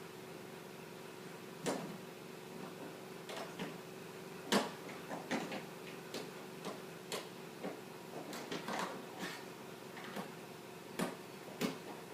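Irregular light clicks and knocks of a screwdriver and small screws working on an old printer's plastic casing during disassembly, over a faint steady hum.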